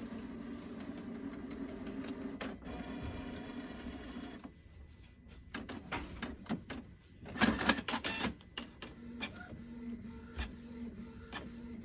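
Canon Pixma MX410 inkjet all-in-one printing a page. A steady motor whir for the first few seconds gives way to a run of clicks and clacks, loudest just past the middle, and then the whir returns with regular ticking.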